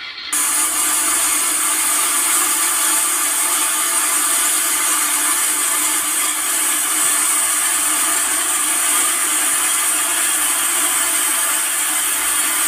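Steady, loud mechanical whirring and rattling from the model railway layout's sound ambiance for its farm scene. It starts abruptly just after the beginning and runs on evenly.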